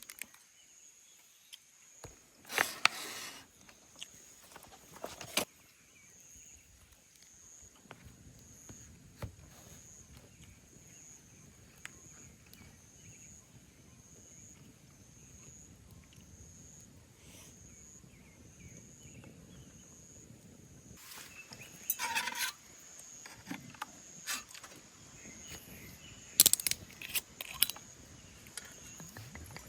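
Crickets or other insects chirping steadily in a high, pulsing trill, with a few short clatters of things being handled about 3, 5, 22 and 27 seconds in.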